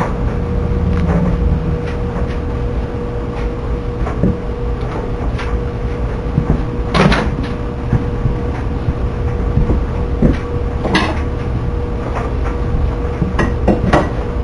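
Microwave oven running with a steady hum and a held mid-pitched tone, with sharp crackles about halfway through, again a few seconds later and several near the end.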